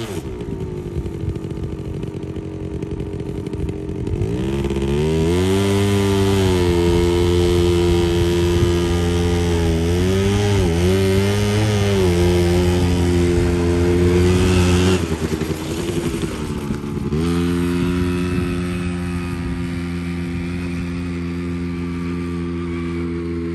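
Quad bike (ATV) engine running and revving through a ride on sand: the revs climb about four seconds in, waver, fall off sharply about fifteen seconds in, pick up again two seconds later, then hold steady.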